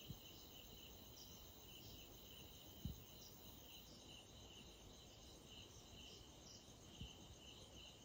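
Faint chorus of night insects, likely crickets, chirping in a steady high-pitched pulsing pattern, with a soft knock about three seconds in.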